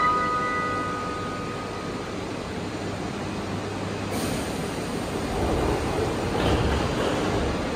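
Toei Asakusa Line subway train on an underground platform. A steady rumble builds to a louder low rumble between about five and seven and a half seconds in. The last notes of a chime melody ring out over the first two seconds, and a short hiss comes about four seconds in.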